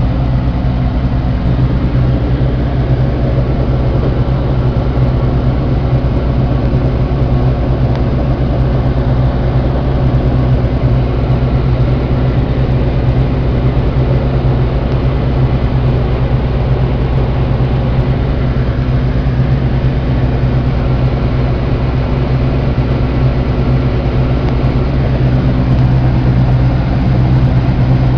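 New Holland TR70 combine running steadily while harvesting corn: a constant loud engine and machinery drone with a strong low hum.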